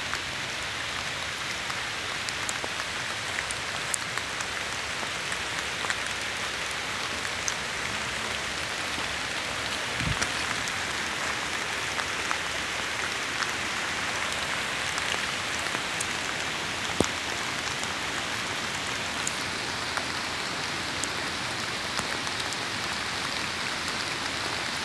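Steady rain falling, an even hiss with scattered sharp drip ticks.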